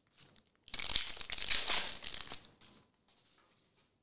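Foil wrapper of a 2023-24 Upper Deck Marvel Annual trading card pack crinkling as it is torn open by hand. The noisy crinkle starts just under a second in and lasts about a second and a half, followed by a few faint ticks as the cards are handled.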